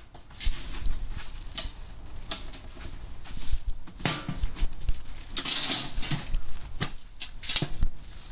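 Sheet-metal snaplock round duct pipe being pressed together by hand: irregular clicks, taps and rattles of the thin metal as the lipped edge is worked into the Pittsburgh lock seam and snaps in.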